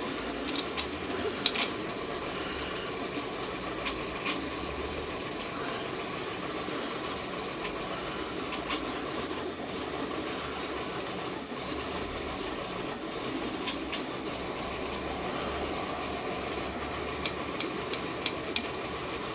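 Steel bolts being driven through a 3D-printed plastic part with an Allen key: scattered sharp clicks and handling noise of key, bolt and plastic, a small cluster of clicks near the end, over a steady background rumble.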